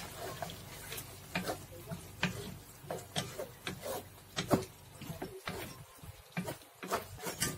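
Wooden spatula knocking and scraping against a stainless steel wok while stirring a sauce being thickened with cornstarch slurry: irregular light knocks, about one or two a second.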